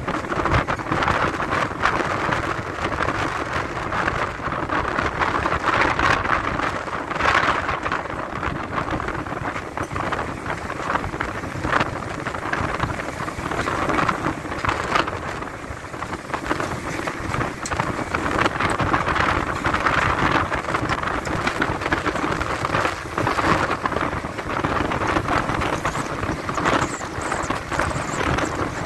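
Heavy storm rain and wind: a continuous rushing noise that swells and eases in gusts.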